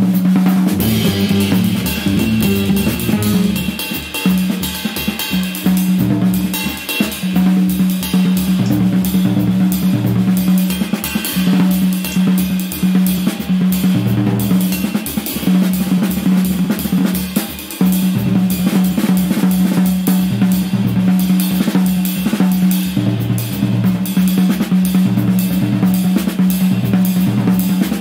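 Recorded jazz quartet playing: a drum kit keeps up a dense run of snare, bass drum, hi-hat and cymbal strokes under a low pitched note that breaks off and comes back. The quartet is cello, guitar, double bass and drums.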